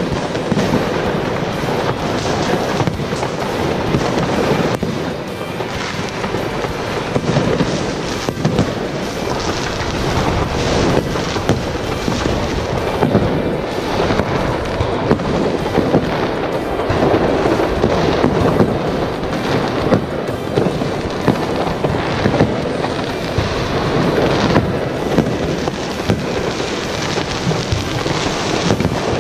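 Dense New Year's fireworks going off from many directions at once: a constant racket of overlapping bangs, crackles and booms, with no pause.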